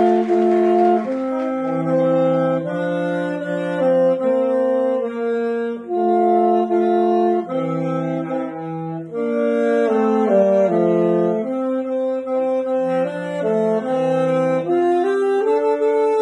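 Two alto saxophones playing a duet in harmony, with held notes changing every half second or so.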